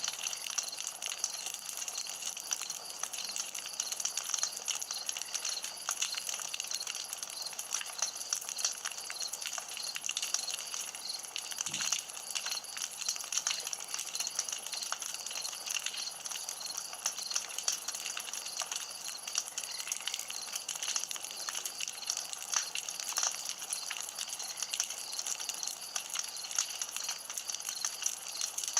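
Campfire burning steadily, the wood crackling with a dense run of small pops, one a little stronger about twelve seconds in.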